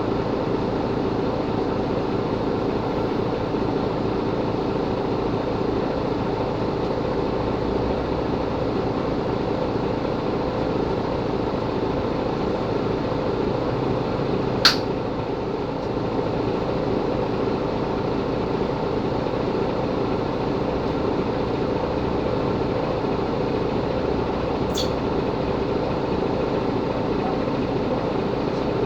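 Mercedes-Benz Capacity L articulated city bus running with a steady drone. There is a sharp click about halfway through and a fainter one near the end.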